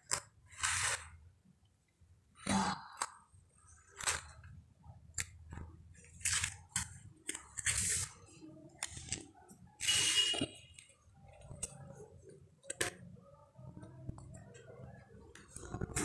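Cardboard jigsaw puzzle pieces being handled, slid across paper and pressed into place: irregular scrapes, rustles and soft clicks.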